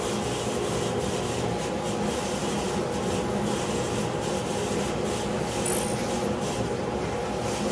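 Dust-extraction vacuum hose sucking walnut chips and dust off a freshly CNC-carved board: a steady rushing noise with a motor hum under it, and the hose nozzle rubbing over the wood.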